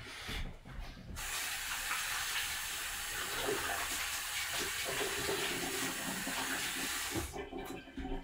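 Water running from a kitchen tap into a sink, turned on about a second in and shut off about a second before the end.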